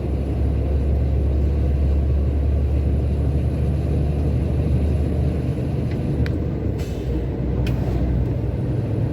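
Truck running on the road, heard from inside the cab: a steady low drone of engine and road noise, with a few faint clicks about six to eight seconds in.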